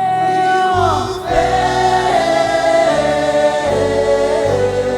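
Gospel choir singing a held phrase of a worship song over a band with bass and keys.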